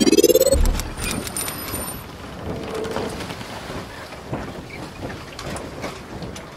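Logo-intro sound effects: a rising whoosh that ends in a deep boom about half a second in, then a steady noisy crackle with scattered clicks and a brief high chime about a second in.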